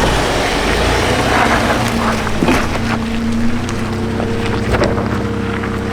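Chevy Colorado pickup truck driving, its engine running steadily under heavy wind noise on the microphone, with a few knocks along the way.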